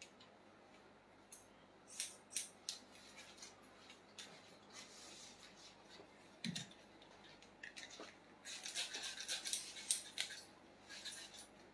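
Hair-cutting scissors snipping hair: a few snips about two seconds in, then a quick run of snips near the end, with a soft low bump about halfway through.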